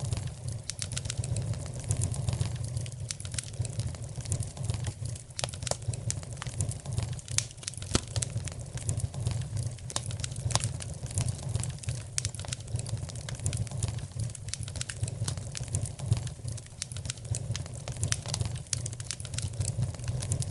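Wood fire in a fireplace crackling, with frequent irregular sharp snaps and pops over a steady low rumble.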